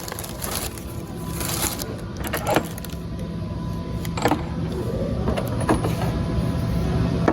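Small engine of a rail drilling machine running steadily, with several short sharp clicks over it.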